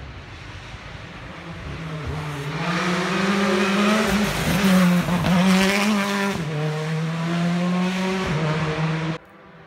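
Rally car on a tarmac stage approaching at speed, its engine note growing louder and higher. The note wavers and crackles around the middle, then holds a steady high rev as the car passes, until the sound cuts off suddenly near the end.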